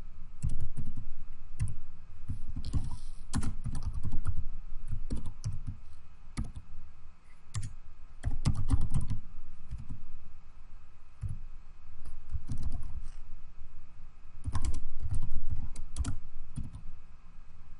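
Typing on a computer keyboard: irregular runs of key clicks broken by short pauses.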